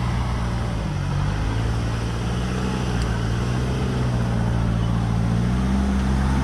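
Toyota LN106 Hilux turbo-diesel engine running at low revs as the truck crawls over rocks, its pitch rising and falling slightly with the throttle.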